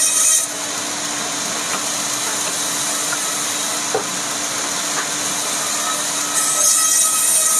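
Woodworking power tool running steadily with a constant hum. A harsh high hiss, typical of the blade cutting rubberwood, comes at the very start and again from about six seconds in.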